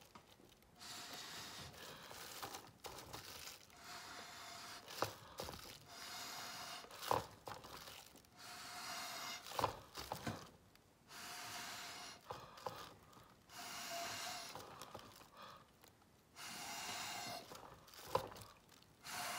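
A person blowing through a drinking straw onto wet acrylic pour paint in repeated puffs of about a second each, with short pauses between, carrying a faint whistle: the paint puddle being blown outward to open up the blooms.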